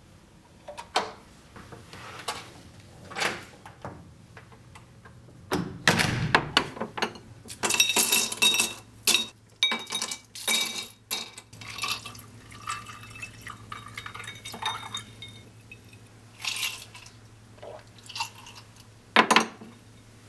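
Ice cubes clinking as they drop into glass tumblers, liquor being poured over them, and glasses clinking and knocking on a hard surface, with the busiest clinking and splashing in the middle and a sharp clink near the end. A few lighter clicks near the start come from a keycard being worked in a door lock.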